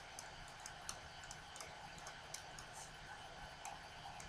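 Computer mouse buttons clicking quietly and irregularly, several clicks a second, over a faint steady hiss and hum.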